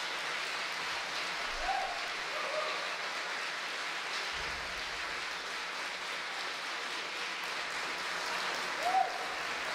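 Audience applauding steadily, with a few brief voices calling out over the clapping.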